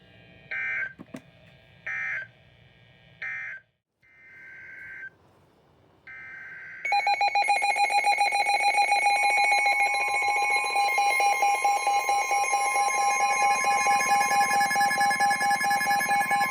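Emergency Alert System data bursts: three short buzzy end-of-message bursts, then two fainter header bursts. About seven seconds in, the loud, steady two-tone EAS attention signal begins and keeps sounding, harsh with overtones.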